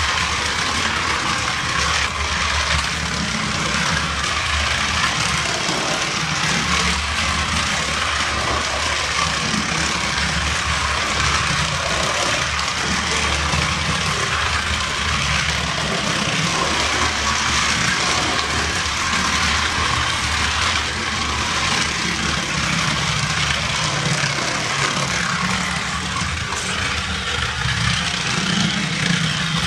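Battery-powered toy cars running along a flexible plastic track: a steady small-motor whir with the rumble of wheels on plastic.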